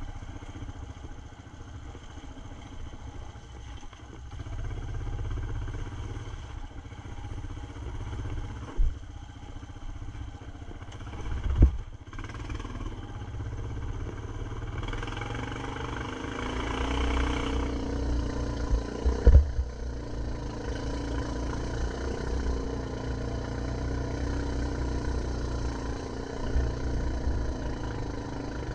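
ATV engine running steadily under way on a dirt trail, over a low rumble. There are three sharp thumps, about nine, twelve and nineteen seconds in, and a stretch of louder hiss a little past the middle.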